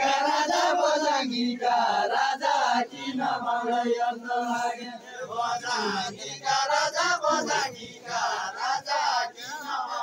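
Deuda folk song chanted by the dancers in a group, mostly male voices, in sung phrases broken by short pauses.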